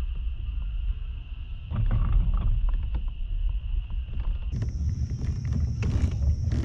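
Low rumbling noise on a kayak-mounted camera's microphone while a lure is being retrieved, with a steady high insect drone throughout and a few sharp clicks about six seconds in.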